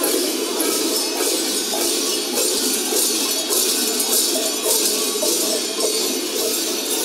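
Many cowbells worn on the sheepskins of Boe carnival masks clanging together in a steady rhythmic jangle, surging with each stride of the marching wearers.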